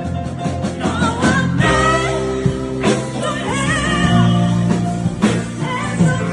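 A band plays a rock song with a singer, holding notes with a wavering vibrato.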